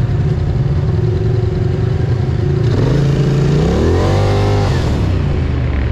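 Polaris ATV engine running at low revs, then rising in pitch about halfway through as the quad accelerates away, holding at the higher pitch near the end.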